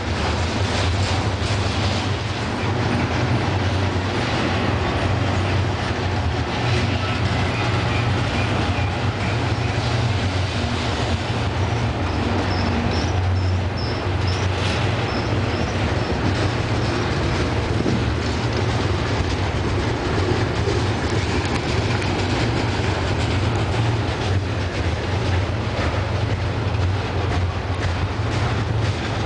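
Double-stack intermodal container cars rolling past close by: a loud, steady rumble of steel wheels on rail with clickety-clack. A few faint, high-pitched wheel squeals come through in the middle.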